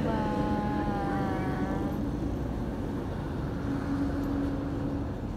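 Steady low rumble of road traffic. In the first two seconds a drawn-out pitched sound falls slightly in pitch, and a steady low engine-like hum follows later.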